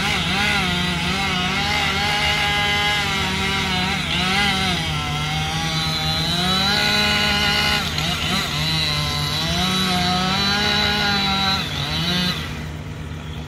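Husqvarna 592XP two-stroke chainsaw cutting into a big oak trunk at high revs, its pitch sagging and recovering again and again as the chain bites. It cuts off about twelve seconds in, leaving a quieter steady engine sound.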